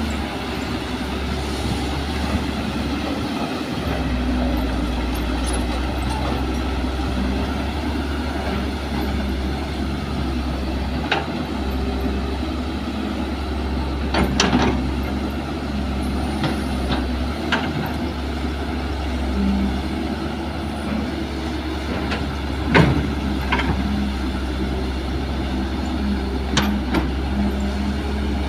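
Kobelco SK200 hydraulic excavator's diesel engine running steadily under working load while it swings and digs soil, with several sharp knocks scattered through.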